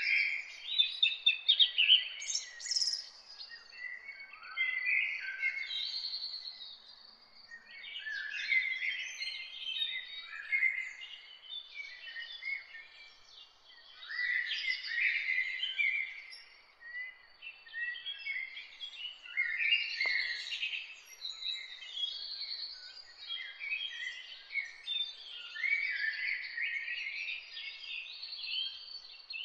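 Many small birds chirping and twittering together in a continuous, busy chorus of short high chirps, swelling and thinning every few seconds.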